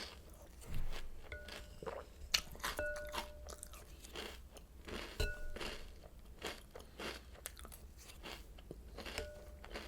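Close-miked chewing and biting of crunchy Oreo O's cereal: quick, irregular crunches all through, with a few brief ringing tones now and then.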